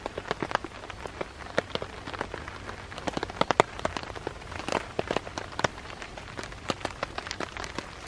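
Steady rain falling on a tarp: a constant hiss with many irregular drops tapping on the fabric.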